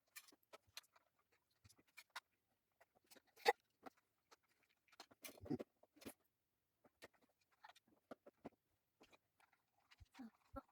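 Faint, scattered clicks and taps of small plastic model-kit parts being handled and fitted together, the sharpest click about three and a half seconds in.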